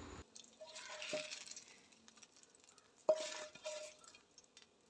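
Wooden spatula tapping and scraping on a ceramic plate while fried masala is spooned over chicken. It makes a few faint clinks, the loudest about three seconds in, each with a brief ring from the plate.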